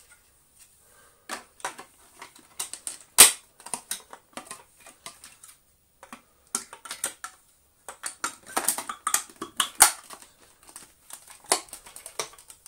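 Plastic parts of a Gtech AirRam cordless vacuum clicking and knocking as they are handled and pressed together, in irregular clatters. There is one sharp knock about three seconds in and denser runs of clicks in the second half.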